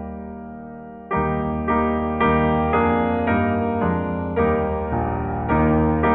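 Piano playing a hymn tune in chords: a held chord fades away for about a second, then new chords are struck about twice a second, each dying away after it is struck.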